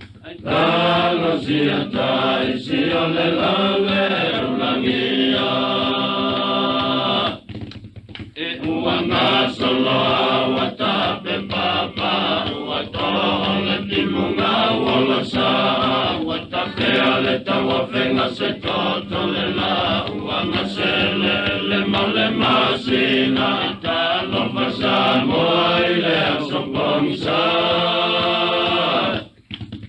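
A traditional Samoan song sung by a group of voices, with a brief break in the singing about seven and a half seconds in.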